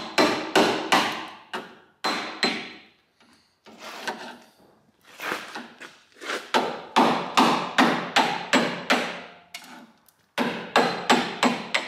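A hammer striking the handle of a screwdriver used as a chisel, chipping thick, layered body filler (bog) off a car's body panel. The sharp taps come in quick runs of about three a second, with short pauses between runs.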